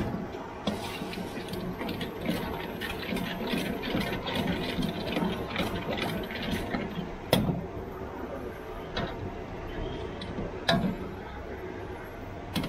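Metal spatula scraping and clinking against a wok in quick strokes as noodles are stir-fried with sauces, over a steady low rumble. A few louder clanks come about seven and eleven seconds in.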